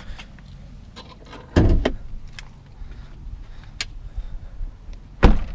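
Handling noise around a pickup truck's open cab door: two heavy thumps, one about a second and a half in and a louder one near the end, with light clicks and rustling between.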